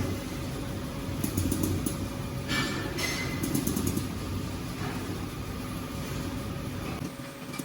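Steady low machine hum over a rumbling noise, with a few short light clicks from handling; the low hum drops away near the end.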